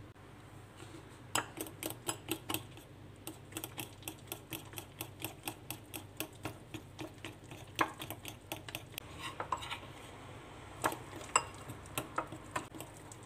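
Metal spoon stirring thick pancake batter of flour, egg yolk and yogurt in a ceramic bowl, clinking against the bowl in a quick, regular rhythm of about three to four taps a second, with a few louder knocks. The stirring starts about a second in.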